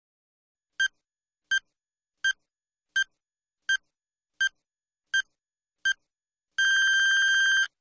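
Countdown timer sound effect: eight short, high electronic beeps about three quarters of a second apart, then one long beep of the same pitch lasting about a second near the end, the signal that time is up.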